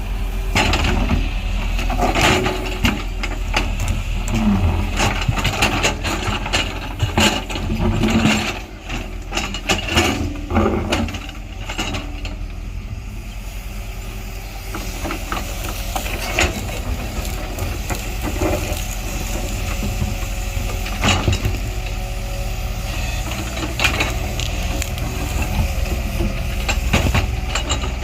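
Heavy diesel engine of earthmoving machinery running steadily, with repeated sharp metallic knocks and clatters, thickest in the first half.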